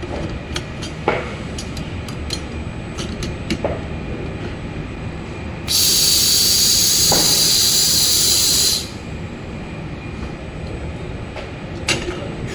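An automatic laser welding platform working: a steady low machine rumble with scattered sharp clicks, and a loud hiss lasting about three seconds near the middle.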